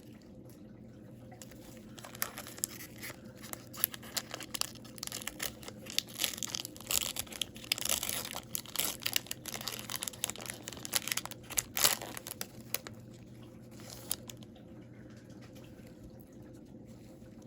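An Upper Deck hockey card pack being torn open and handled: a run of short crinkles and rips from the pack wrapper, thinning out over the last few seconds.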